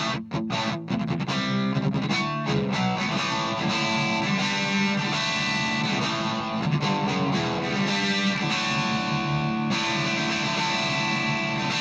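Electric guitar, a Gibson SG Standard, played through a Marshall MG10CF's overdrive channel with the gain turned down to about nine o'clock, giving a light distortion. It opens with a few short, choppy strokes, then rings out in sustained chords and notes.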